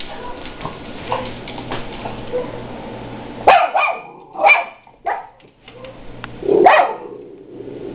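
Miniature schnauzer giving alert barks, set off by another dog barking outside. Fainter sound for the first few seconds, then four loud, sharp barks in the second half.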